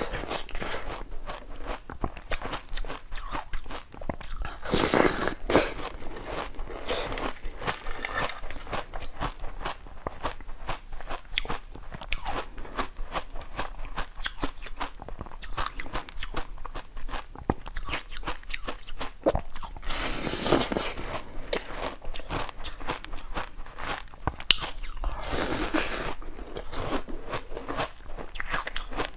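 Close-up mouth sounds of a person biting into and chewing a soft white bun: wet, crackly chewing throughout, with three louder stretches of biting spread through.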